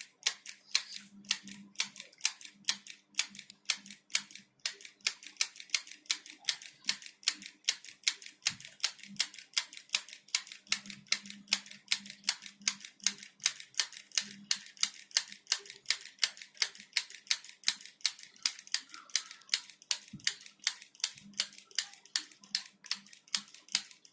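Mini handheld stapler-style sewing machine clicking steadily as it is squeezed and released again and again, about three clicks a second, each squeeze driving one stitch through the cloth.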